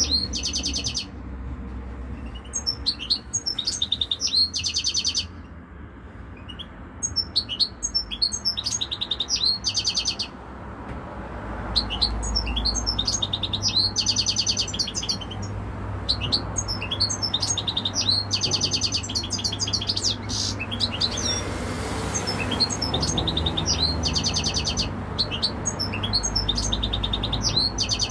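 Caged European goldfinch singing: bouts of fast, high twittering song mixed with buzzy trills, broken by pauses of a second or two. The longest bout runs for several seconds through the middle.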